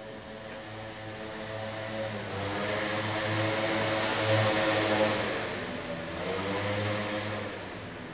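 A vehicle passing by, its engine and road noise swelling to a peak about four to five seconds in and then fading away, over a steady hum.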